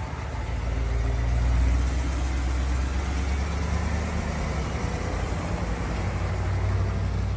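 2023 GMC Sierra AT4X pickup's engine running as the truck drives past and away, a low, steady rumble.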